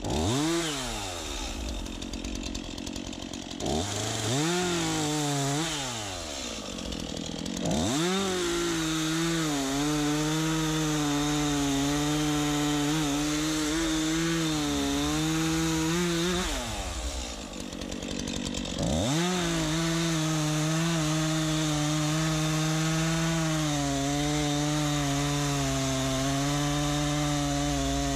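STIHL MS 251 C two-stroke chainsaw revving and cutting wood. It gives several short revs that fall back in the first eight seconds, then runs at high speed with a wavering pitch. It drops off briefly about 17 seconds in and revs back up for a second long run.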